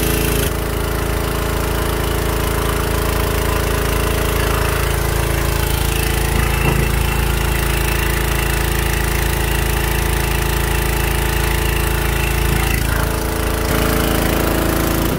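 Small engine running steadily at a constant speed, with a hiss over it.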